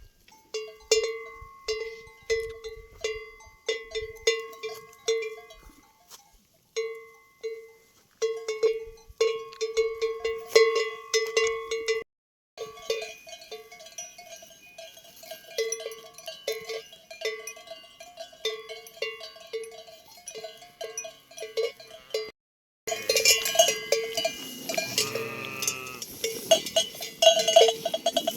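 A large bell on a flock's lead ram clanging in a quick, steady rhythm as the animal walks, with other sheep bells ringing along. Near the end, sheep start bleating over the bells.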